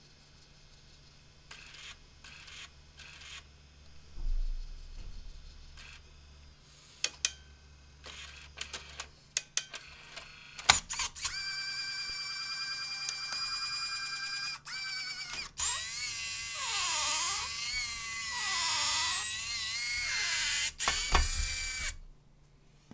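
Libra 8 DDS3 tape changer unloading its tape: a string of clicks and short motor whirs, then a steady high motor whine from about halfway. After that comes a louder whine that dips and rises in pitch twice as the mechanism moves the tape magazine, and it stops abruptly just before the end.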